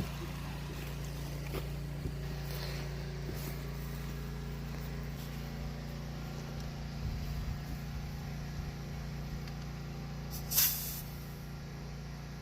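A steady low mechanical hum throughout, with a few faint knocks and one short, loud hiss about ten and a half seconds in.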